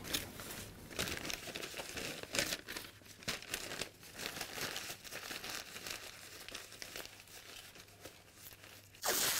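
Newspaper being handled and crumpled, rustling in irregular bursts, with a louder crumple just before the end.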